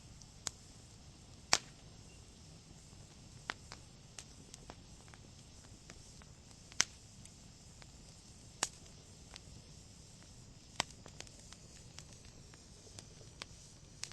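Wood fire in a fireplace crackling: sharp, irregular pops from the burning logs, a second or several apart, over a faint steady hiss.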